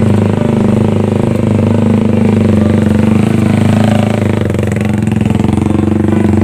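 Small motorcycle engine running steadily close by with a fast, even pulse. A second motorbike comes up and passes close by about four seconds in.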